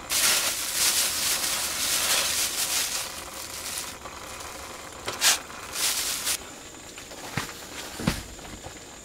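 Thin plastic bag crinkling and rustling as it is handled, then grains tipped from it into a stainless steel pot of water, with a few short low knocks near the end.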